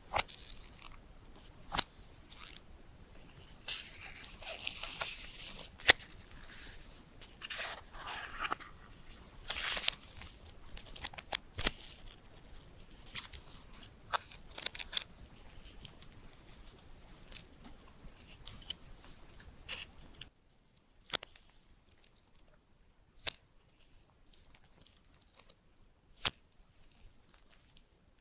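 Smartphone packaging being torn and peeled open by hand, with many sharp clicks and taps of handling. From about two-thirds through, only a few separate taps remain.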